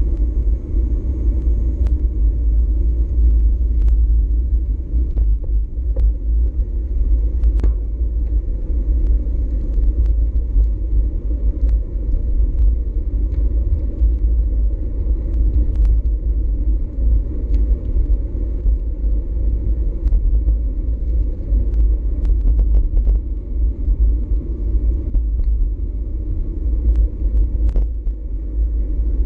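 Wind buffeting a GoPro Hero4 Session's microphone while riding a bicycle, a steady loud rumble, with scattered light clicks and rattles through it.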